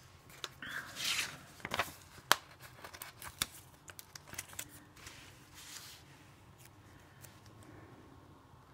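Planner stickers and paper being handled at close range: short peeling, tearing and rustling sounds with several small sharp clicks, the loudest click a little over two seconds in.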